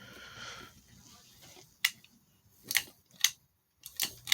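Ceiling fan pull-chain speed switch clicking about five times in the second half, as the chain is pulled to step the fan from low to high.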